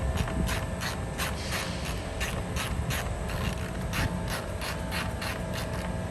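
Hand ratchet wrench clicking as a fastener is turned, about four clicks a second, stopping near the end. A steady low hum runs underneath.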